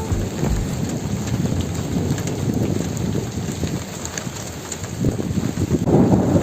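Heavy thunderstorm rain falling steadily, with a low rumble swelling about five seconds in.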